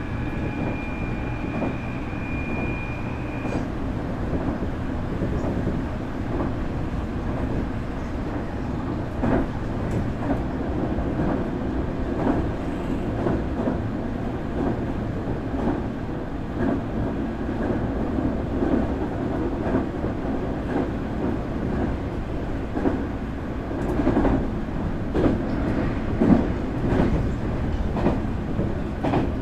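Nankai 8300 series electric train running, heard from a motor car: a steady high whine from its IGBT VVVF inverter and traction motors stops about three and a half seconds in, and wheel rumble with rail-joint clacks carries on.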